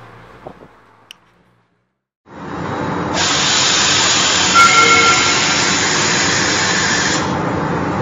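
Loud, steady hissing sound effect laid over a graphic transition. It starts abruptly about two seconds in, grows brighter a second later and carries a couple of faint whistle-like tones near the middle. Before it, the quiet tail of a train passing a level crossing fades out in the first second and a half.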